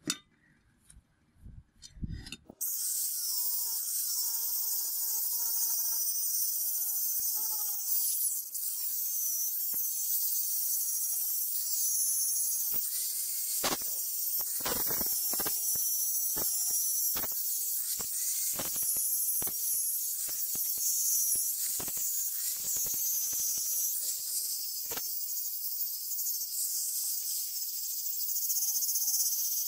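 A few faint knocks, then about two and a half seconds in an angle grinder starts grinding the steel cleaver blade: a steady high hiss with a wavering whine and brief catches as the disc bites.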